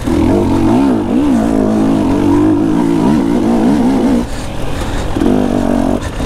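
KTM enduro dirt bike's engine revving up and down in quick waves as the rider works the throttle along a slick, rutted mud trail. It drops off about four seconds in, then picks up again about a second later.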